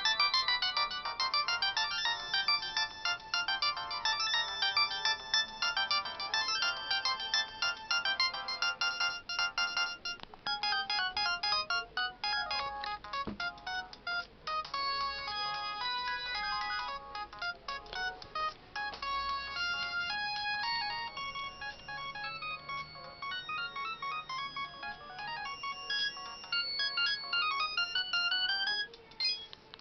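LG A180 mobile phone playing its built-in ringtones. One melody of dense chords runs until about ten seconds in, then a different tune of quick, separate high notes takes over and stops just before the end.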